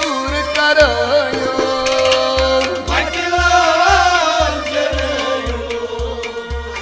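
Folk music: a harmonium drone and a wavering melody line over hand drumming on a clay pot drum, with a steady low beat about twice a second.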